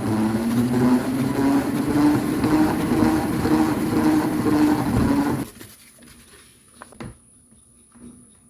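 A small electric motor running loudly with a steady hum that rises slightly in pitch, cutting off sharply about five seconds in, followed by a few light clicks.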